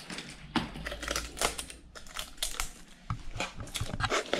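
Irregular light clicks and taps mixed with crinkly rustling, the sound of things being handled.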